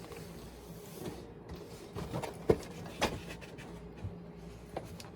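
Cardboard and plastic packaging of a trading card box being handled: a few sharp clicks and knocks, the loudest about halfway through, over a low steady hum.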